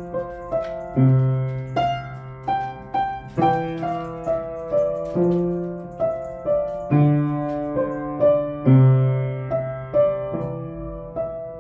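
Piano playing a melody of struck notes, about two a second, over held low bass notes.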